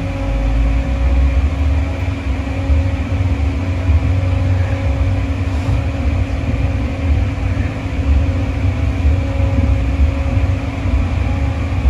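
Schöma maintenance locomotive running at low speed, heard from inside its cab: a steady low rumble with a constant hum over it.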